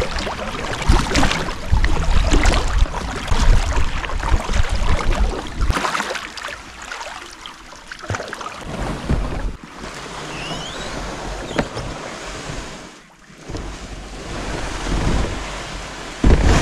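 Kayak paddle strokes dipping and splashing in river water, with wind rumbling on the microphone; the level rises and falls, with a quieter stretch in the middle and a loud jump near the end.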